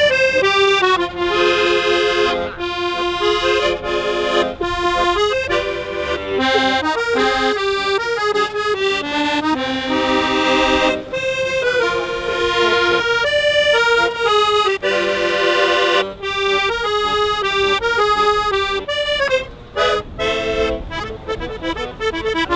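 Piano accordion played solo, a melody over held chords.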